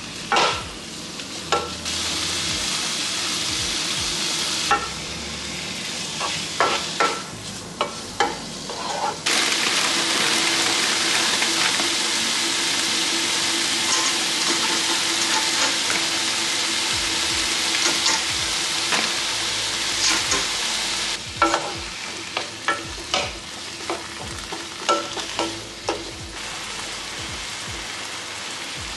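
Food sizzling in a frying pan while it is stirred, with a utensil clicking and tapping against the pan. The sizzle gets louder for a stretch about two seconds in and again from about nine to twenty-one seconds in.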